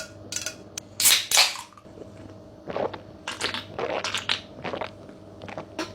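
Drink can being handled: a loud crackling burst about a second in, then a run of short crackles and clicks.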